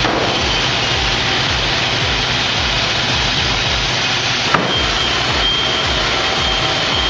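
Heavy machinery running steadily under load, with a low throb repeating about twice a second and a single sharp click about four and a half seconds in.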